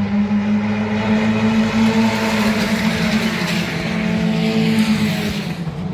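Race car engines running hard as cars pass along the circuit, a steady engine note with tyre and wind noise that swells through the middle and eases near the end.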